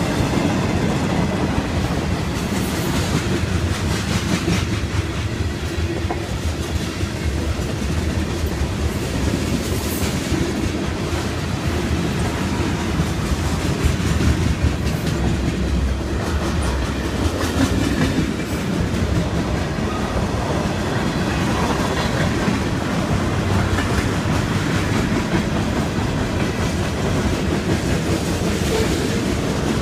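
Norfolk Southern freight cars (covered hoppers and boxcars) rolling steadily past close by: a continuous rumble of wheels on rail with scattered clicks as the wheels cross rail joints.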